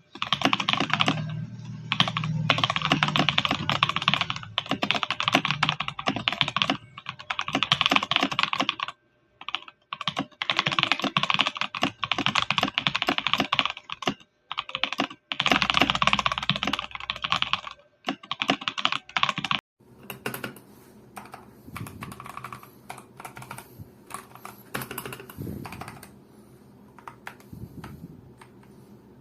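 Typing on a Tecware Phantom+ Elite 87-key mechanical keyboard: fast runs of key clicks with short pauses. About two-thirds of the way through, the typing turns much quieter and sparser.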